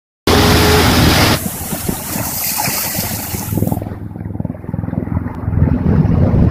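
Wind blasting across the microphone over the rush of rough sea and the wake of a sailing yacht. The sound starts abruptly a moment in, with the hiss loudest in the first second and a half; after about the middle it drops to a low rumbling buffet.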